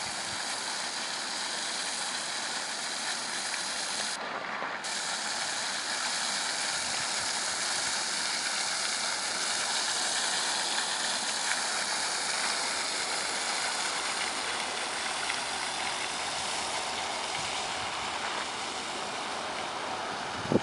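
Water gushing from a pipe over the edge of a black plastic pond liner and splashing down onto it: a steady rushing hiss.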